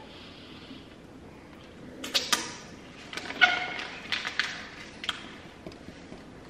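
Eating and food-handling noises at a table: scattered sharp clicks and crinkles, loudest about two seconds in and again around three and a half seconds in.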